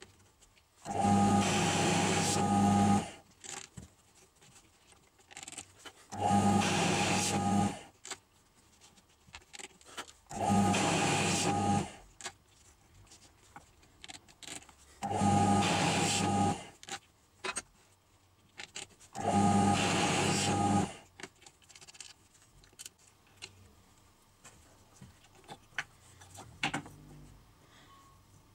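A drill press runs in five short bursts of about two seconds each, its motor noise joined by the grinding of the bit cutting into the edge of a wooden disc. Between runs there are light clicks as the workpiece is handled and turned.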